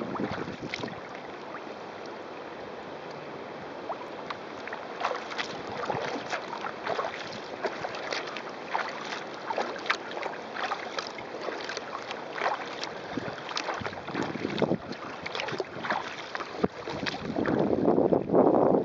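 Wooden sailing kayak under way: water rushing and slapping along the hull in frequent small splashes, with wind buffeting the microphone. The rush swells louder near the end.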